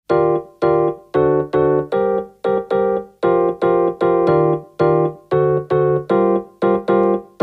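Background music: a piano-like keyboard playing short chords in a bouncy rhythm, about three a second, each struck sharply and fading before the next.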